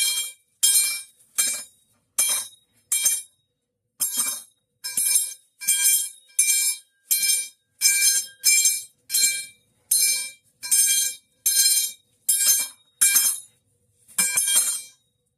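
The metal pipe sound effect: a metal pipe clanging with a bright, ringing tone, repeated about twenty times, roughly every three quarters of a second. Each clang cuts off sharply into silence.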